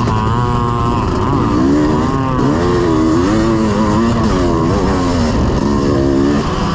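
1986 Honda CR500's two-stroke single-cylinder engine being ridden, revving up and dropping back several times over a steady rushing noise.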